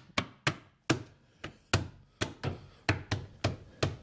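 Plastic wheel trim being knocked into place on a steel wheel: about a dozen sharp knocks in quick succession, roughly three a second.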